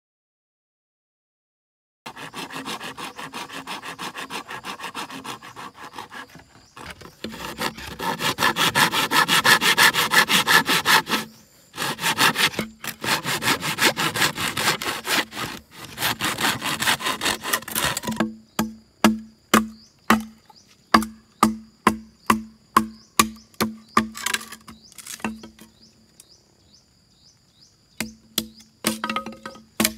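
A hand saw cuts through a green bamboo stalk in fast, rasping strokes, starting about two seconds in, with two short pauses. From just past the middle, a machete strikes the bamboo in a series of sharp knocks, about two a second.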